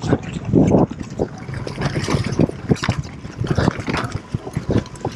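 Mountain bike riding fast down a dirt forest trail: tyres on dirt, with rapid irregular knocks and rattles from the bike over roots and bumps.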